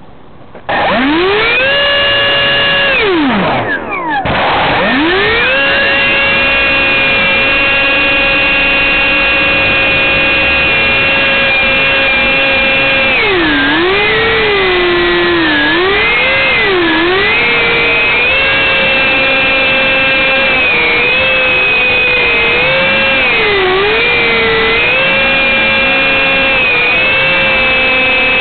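Two electric ducted fans spooling up to a high whine about a second in, dropping away and cutting out briefly near four seconds, then spinning back up and running at high speed over a rush of air. The pitch dips and rises again several times later on as the throttle is eased and reopened.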